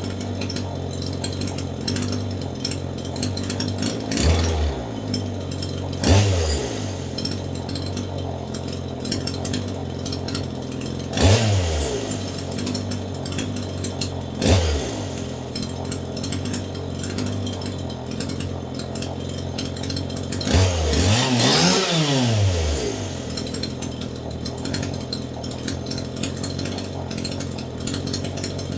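Two-stroke chainsaw idling, its throttle blipped five times so the engine note rises and falls quickly each time. The last blip, about three-quarters of the way through, is a longer rev.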